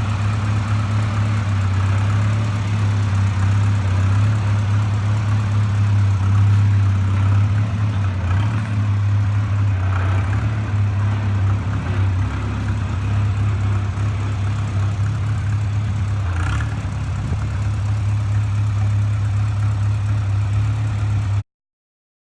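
An engine idling steadily with a low, even hum. It cuts off suddenly near the end.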